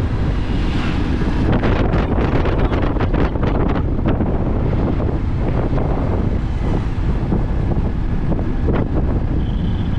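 Wind rushing over the microphone of a motorcycle riding at about 40 km/h, with the bike's engine and road noise underneath.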